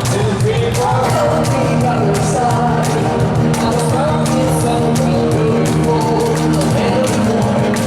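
A rock band playing live, with a lead vocal sung over drums, bass and guitar and a steady beat of drum hits.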